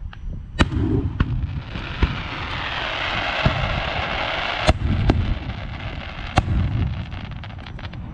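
Aerial firework shells bursting: four loud sharp bangs about one to two seconds apart, with smaller pops between, over a steady low rumble. A hiss fills in from about one and a half to five seconds in.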